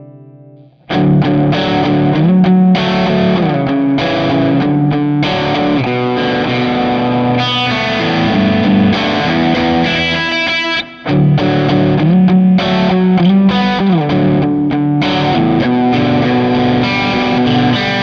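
Electric guitar with a driven, medium-gain tone through a profile of a Bad Cat Hot Cat 40 amp, playing a riff with slides between notes. The ringing chord from the previous preset dies away within the first second, then the riff starts, with a short break about eleven seconds in.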